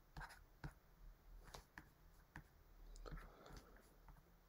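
Faint scattered clicks and taps of a stylus on a writing tablet in near silence, with a short faint scratch of pen strokes about three seconds in.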